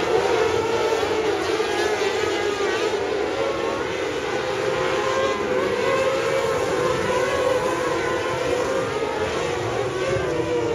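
A pack of winged sprint cars racing on a dirt oval, many high-revving engines running at once, their pitches wavering up and down as the cars go through the turns and down the straights.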